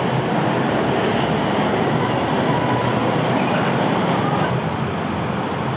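Steady, loud rumble of passing vehicles, easing slightly near the end.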